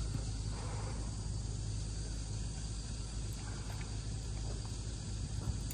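Steady outdoor background: a constant low rumble with a thin, unbroken high insect drone over it, and faint voices now and then.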